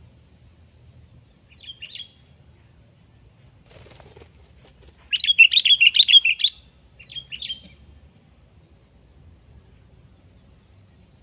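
Sooty-headed bulbul (kutilang) calling: a short chirping phrase about two seconds in, a loud rapid chatter of about ten notes in the middle, and a brief phrase just after, over a steady high insect drone.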